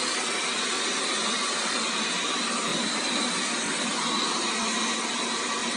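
Xiaomi Mi Robot Vacuum running while it cleans: a steady rushing suction noise with a faint high whine through it.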